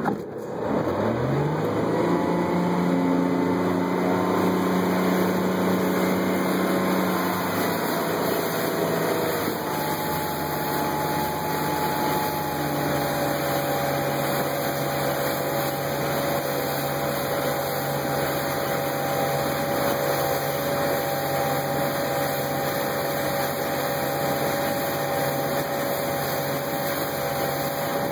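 Tow boat's engine throttling up about a second in, rising quickly in pitch as it pulls a wakeboarder up out of the water, then running steadily at towing speed, settling into a slightly lower, even tone after about ten seconds. Wind and rushing water hiss underneath.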